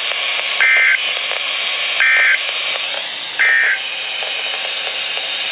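NOAA Weather Radio hiss broken by three short bursts of Emergency Alert System SAME data tones, a rapid two-tone warble about one and a half seconds apart: the end-of-message code that closes the warning.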